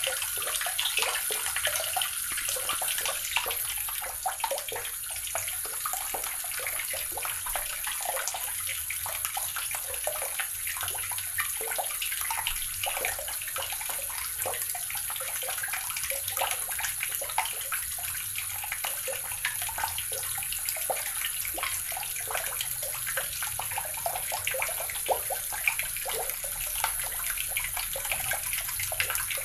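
Water running steadily from a tap and splashing into a basin or tub below, a continuous hissing splash with many small spatters.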